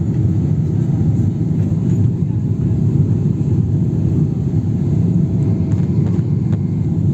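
Airliner cabin noise: a steady low rumble of the engines and airflow heard inside the cabin, with a faint steady hum above it.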